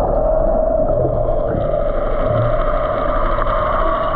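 A boat's engine running, heard underwater as a steady droning hum with a higher tone joining about one and a half seconds in.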